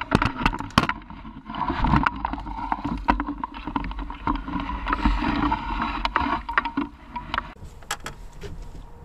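A striped bass thrashing in a landing net at the boat's side, water splashing and sloshing. Sharp knocks and clatters come in clusters, most of them in the first second and again near the end.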